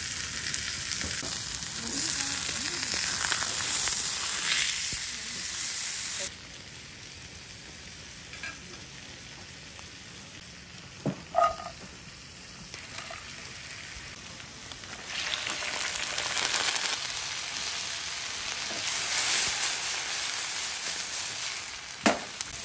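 Food sizzling in hot oil on a portable gas stove, with a steady hiss that drops suddenly to a quieter stretch about six seconds in. A couple of light clicks come around the middle, and the sizzle rises again as sliced garlic fries in the pan, ending with a sharp click.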